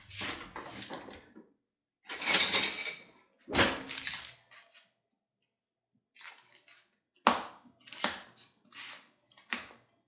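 Kitchen handling sounds: a noisy rustle lasting about a second, a sharp knock, then after a short pause a series of short clicks and taps.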